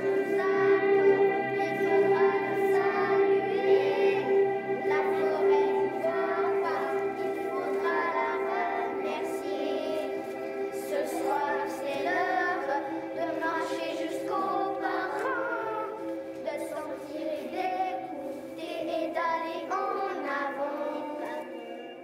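A group of children singing a song together over steady held instrumental notes.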